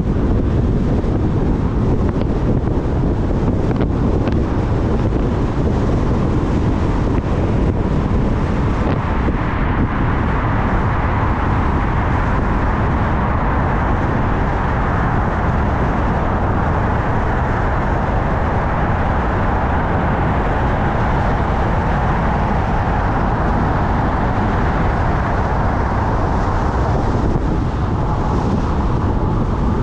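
Steady road and wind noise from a car driving at speed, with a low, constant rumble of tyres and airflow. From about ten seconds in the noise grows brighter and fuller as the car drives through a road tunnel, and it eases back near the end as the car comes out into the open.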